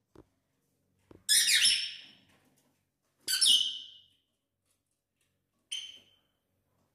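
Pet lovebirds giving shrill, screechy calls: two loud ones about a second long, then a shorter, fainter one near the end.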